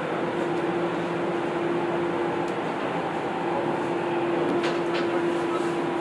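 Steady interior noise of a Tokyo Metro 10000 series train car: an even rush of air-conditioning and running gear under a constant hum, with two short clicks about four and a half seconds in.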